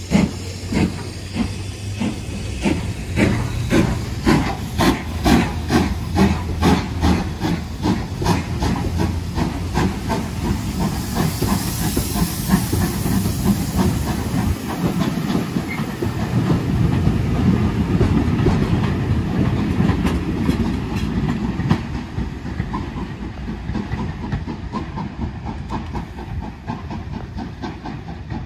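Two-cylinder BR Standard Class 5 steam locomotive pulling away from a standstill, its exhaust beats starting about two a second and quickening until they run together, then the coaches rolling past with a steady wheel rumble and clatter that fades as the train draws away.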